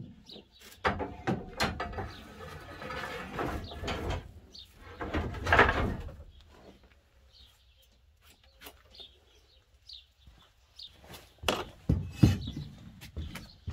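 Knocks, scrapes and rustling as long-handled tools and a broom are moved about on a wooden rack in a van's cargo hold, loudest about five seconds in; near the end, sharp knocks and clinks as steel rebar stakes are pulled from a metal shelf. Birds chirp faintly in the background.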